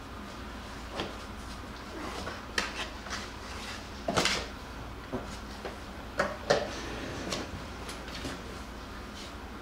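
Jackabee (Beagle–Jack Russell cross) puppies wrestling in a cardboard box: irregular scrabbling, scratches and knocks against the cardboard, loudest about four seconds in and twice more around six and a half seconds in.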